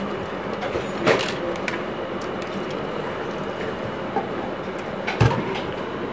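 An air-conditioner circuit board being handled on a rubber bench mat: a sharp click about a second in and a heavier knock near the end as the board is moved, over a steady background hiss.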